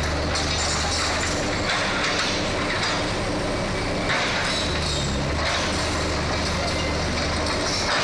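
Hitachi hydraulic excavator's diesel engine running as the machine travels on its tracks. It makes a steady mechanical din with a deep engine hum that drops away for a couple of seconds and returns.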